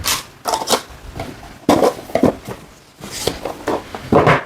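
Handling noises from unboxing: plastic packaging and the clipper and its accessories clattering, rustling and being set down on a table in a series of short knocks and rattles.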